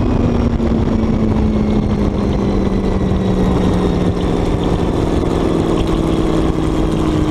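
Supercharged alcohol big-block Chevy engine of a front-engine dragster running at low revs as the car slows after its pass, heard from the cockpit as a loud drone whose pitch slowly falls, over a steady rushing noise.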